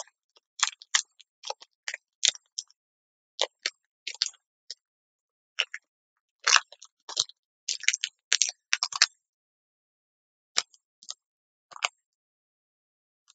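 Short, irregular crackles and clicks of a freshly opened Pokémon booster pack being handled: the torn foil wrapper and the cards, thickest a little past the middle.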